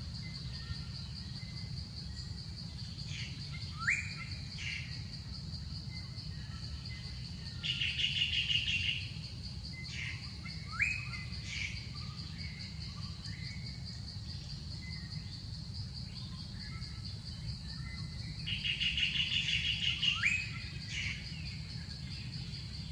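Wild birds calling over a steady high insect buzz: three fast trills of about a second and a half each, roughly ten seconds apart, and a few short whistled notes that sweep upward in pitch.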